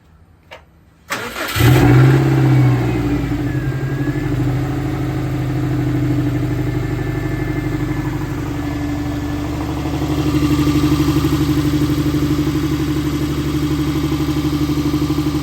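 Subaru WRX's turbocharged flat-four engine starting about a second in on freshly installed equal-length headers, the revs flaring up and then settling into a steady idle. It is the first start after the exhaust was put back together, to check for leaks.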